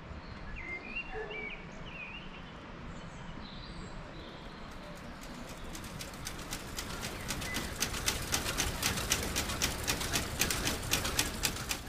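Birds chirping in the open, then from about five seconds in a fast, even clatter of cotton-mill machinery, about five clacks a second, growing steadily louder.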